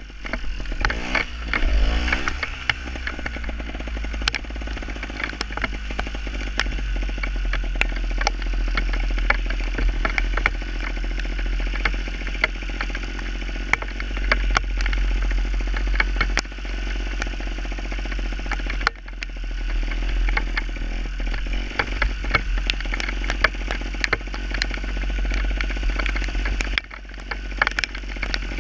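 Gas Gas TXT 270 two-stroke trials motorcycle being ridden, revving up and down in the first couple of seconds and then running steadily, with frequent clicks and clatter. The throttle drops off briefly about two-thirds through and again near the end.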